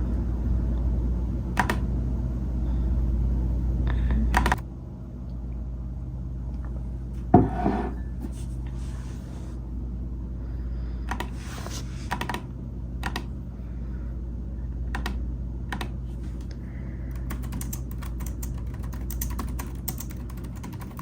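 Typing on a computer keyboard: scattered key clicks, with a quicker run of keystrokes near the end. A steady low hum drops away about four and a half seconds in, and a single louder knock sounds about seven seconds in.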